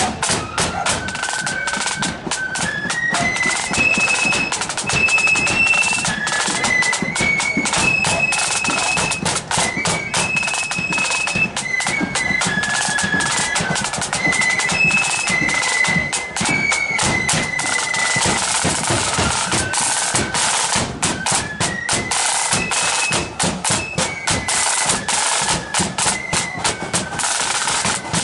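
A marching flute band playing a tune on high-pitched flutes, driven by snare drums with rolls and a bass drum.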